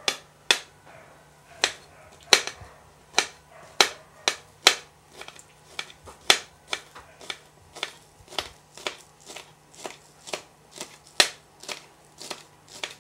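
Kitchen knife chopping scallions on a cutting board: sharp, irregular knocks of the blade striking the board, about two a second.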